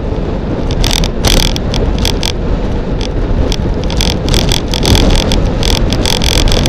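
Wind rushing over the microphone of a camera mounted on a road bike descending a street, with the rumble of the ride and frequent short crackles. It gets a little louder as the bike speeds up.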